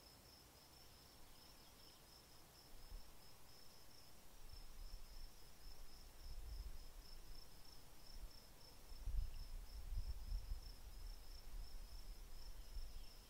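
Insects trilling steadily at a high pitch, with a low rumble that builds from about three seconds in and is loudest around nine seconds.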